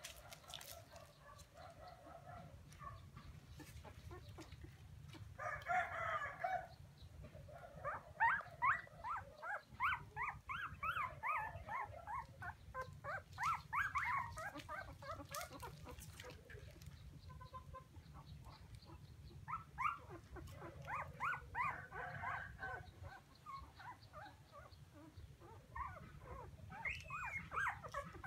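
Young puppies crying in bouts of short, high whimpering squeals, with quieter gaps between the bouts.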